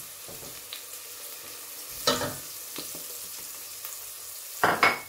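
Chopped onion, carrot and garlic sizzling in oil in a stainless steel pot, stirred with a wooden spoon. A steady frying hiss, with two louder knocks, one about two seconds in and one near the end.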